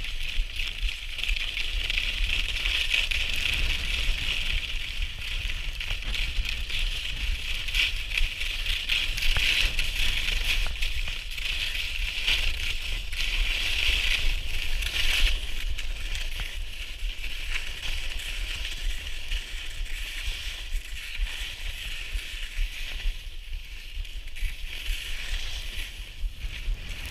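Skis sliding over snow: a steady scraping hiss, easing a little after about fifteen seconds, with wind buffeting the microphone as a low rumble.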